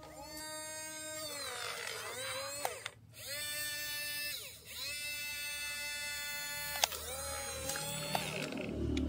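Small electric motors and plastic gearboxes of a toy excavator whining as the boom and arm move. The whine rises in pitch as each motor spins up and falls as it stops, several times over with short pauses between.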